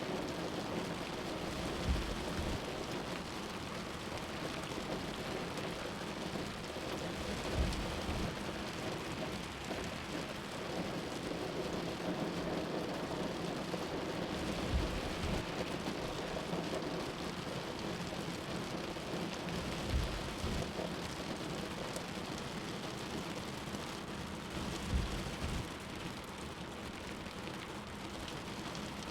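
Steady hiss of rain and wet road noise heard from inside a moving car, with a low hum under it and a short low thump every five to seven seconds.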